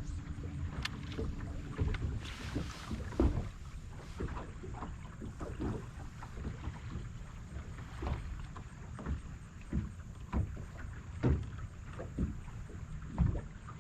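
Choppy water slapping against the hull of a bass boat in strong wind: irregular low knocks and splashes every second or two, with some wind on the microphone.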